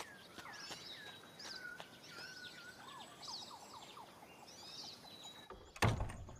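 Forest birdsong ambience: many short chirps and downward-sliding bird calls over a faint steady high tone. About a second before the end a louder, lower thump breaks in.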